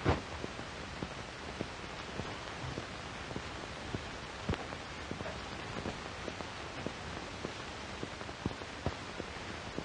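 Steady hiss with scattered faint crackles and clicks: the background noise of a 1938 film's optical soundtrack.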